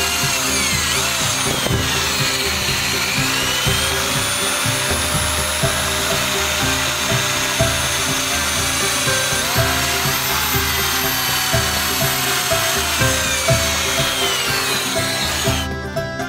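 Electric drill boring into a wooden block, its motor whine rising and falling in pitch with the load. It stops about a second before the end, under background music with a steady beat.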